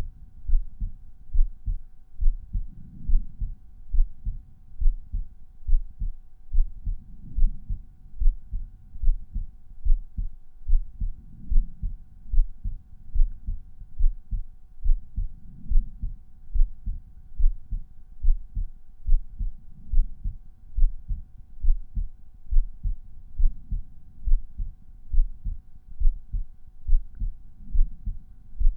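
Regular resting human heartbeat heard at the pulmonary auscultation point on the chest: steady, evenly spaced low lub-dub thumps about once a second, with a soft swell every four seconds or so. A faint steady hum runs underneath.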